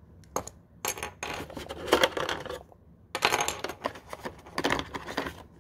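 Blink camera parts and lithium batteries being pulled out of a moulded black plastic packing tray: several bursts of clicking, rattling and clinking of hard plastic and battery casings.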